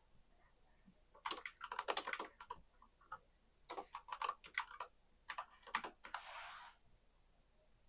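Computer keyboard typing, faint, in three short bursts of quick keystrokes, followed by a brief soft rush of noise.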